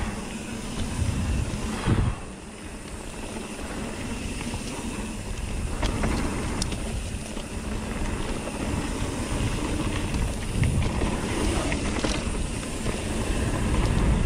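Mountain bike riding a dirt trail: a steady rush of wind and tyre noise over a low rumble. The bike rattles over the ground, with a few sharp clicks.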